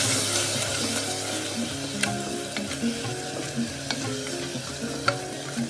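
Grated onion, coconut and green chilli paste sizzling in hot oil and ghee in a pressure cooker while a wooden spatula stirs them. The spatula knocks against the pot a few times.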